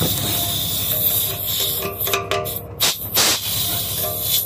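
Compressed air hissing out of a trailer air-brake valve pushed open with a screwdriver, the way this trailer's brakes are made to release. The hiss breaks off briefly a little past two seconds in and comes back in a loud burst about a second later.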